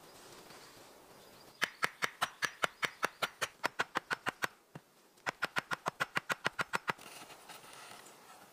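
Rapid, even knocking on wood, about seven knocks a second, in two runs with a short pause between them.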